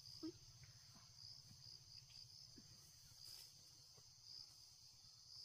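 Insects chirping in a steady, high, pulsing trill over a faint low hum, with a few light clicks.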